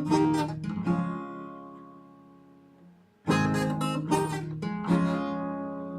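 Acoustic guitar being strummed: a few quick chord strums, one chord left ringing and fading for about two seconds, then another run of strums that rings on.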